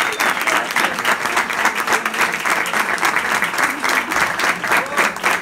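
Audience applauding: a small crowd clapping steadily, with one person's hands clapping close by.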